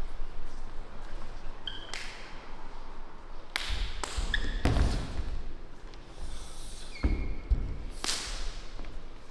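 Martial artists working partner drills: an irregular series of thuds and slaps of bodies and feet on the floor, heaviest about halfway through, with a few short high squeaks in between.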